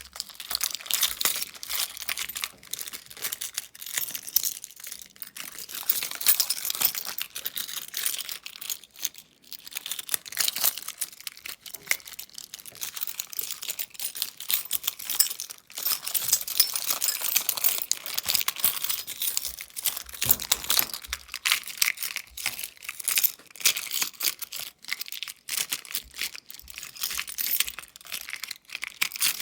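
A bunch of metal keys jangled and turned over in the hands while looking for the right one, a continuous clickety-clack of keys clinking against each other with only brief pauses.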